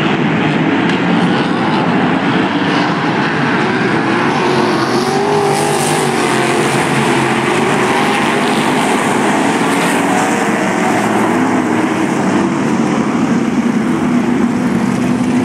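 Sprint cars racing in a pack, their V8 engines running loud and continuous. Several engine pitches overlap and rise and fall as the cars go around the track.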